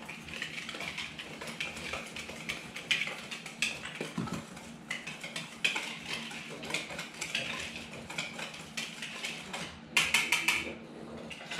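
A utensil scraping and clicking against a glass mixing bowl as flour and other dry ingredients are stirred together, with a quick run of louder taps about ten seconds in.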